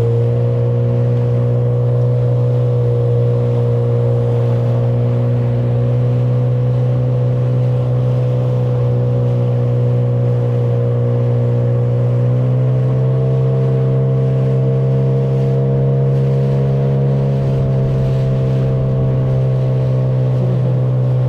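Outboard motor driving an inflatable boat at steady speed, the engine picking up a little about twelve seconds in as the throttle is opened slightly, with water rushing along the hull.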